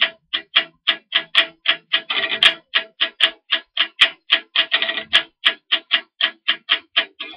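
Electric guitar played in short, choppy muted strokes, about five a second, with a brief run of connected notes about two seconds in.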